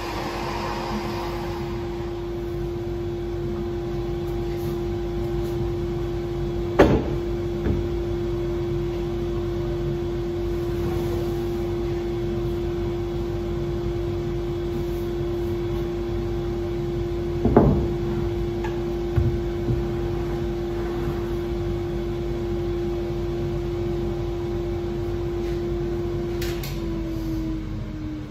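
A workshop machine's electric motor runs with a steady hum and whine, then is switched off near the end and winds down, its pitch falling. Two sharp knocks come about a quarter and about two-thirds of the way through.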